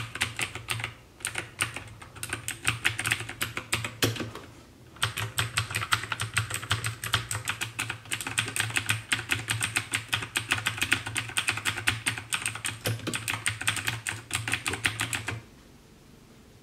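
Typing on an Armaggeddon MKA-7C mechanical keyboard with blue switches: fast runs of sharp, clicky keystrokes, with brief pauses about a second in and around four seconds in. The typing stops shortly before the end.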